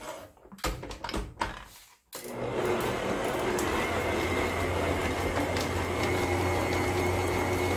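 A few knocks and clatter, then about two seconds in a stand mixer's motor starts and runs steadily, with a low hum and a faint high whine, as the dough hook kneads bread dough with butter worked in to develop the gluten.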